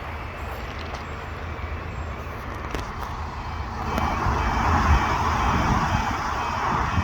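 A road vehicle passing, its running and tyre noise growing louder about four seconds in.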